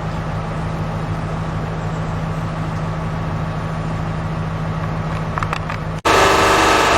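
A heavy engine running steadily with a low, even hum. About six seconds in, the sound drops out for a moment and a louder, steadier engine drone takes over.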